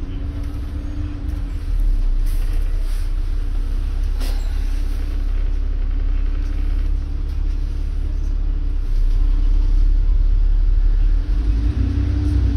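Inside a moving London double-decker bus: steady low engine and road rumble. A whining drive tone fades about two seconds in and comes back, rising, near the end as the bus picks up speed, with a single knock about four seconds in.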